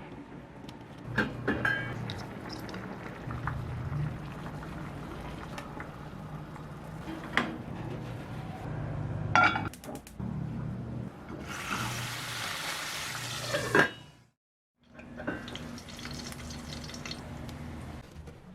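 Water running and splashing in a kitchen, with a few sharp knocks of pots and utensils. A louder stretch of water noise near the end breaks off into a brief silence.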